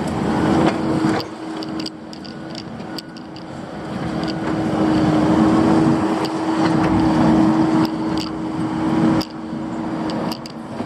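Vehicle engine running with a steady humming tone, growing louder toward the middle and dropping away near the end, with scattered light clicks and knocks.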